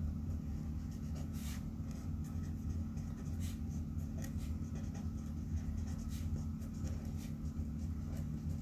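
Blue marker pen writing on paper in a series of short strokes, over a steady low hum.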